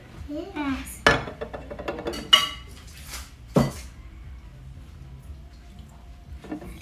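Glass honey jar and wooden honey dipper knocking against the jar and dishes as honey is served onto a pancake: three sharp clinks a little over a second apart, then quieter handling.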